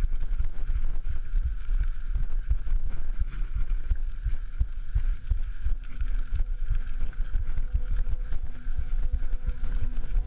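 Mountain bike rolling fast down a rough dirt trail, heard on a rider-mounted camera: wind rumbling on the microphone, with the bike rattling and knocking constantly over the bumps.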